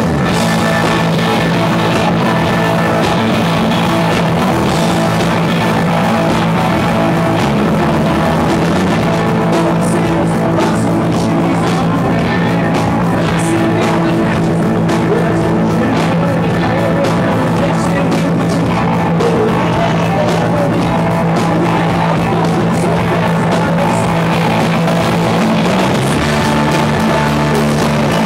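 Live rock band playing: electric guitar and drum kit with held low notes underneath, loud and steady throughout.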